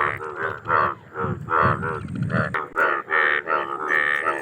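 A breeding chorus of Indian bullfrogs (Hoplobatrachus tigerinus). Short pitched croaks repeat about two to three times a second and overlap one another.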